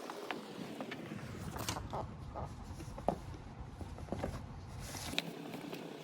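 Phone box and packaging being handled during an unboxing: scattered small clicks and taps, with a low rumble from about one second in until about five seconds in.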